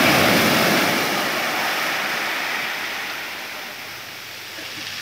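Surf: a wave breaks on the shore with a loud rush, and its wash fades away over the next few seconds before the next wave begins to build near the end.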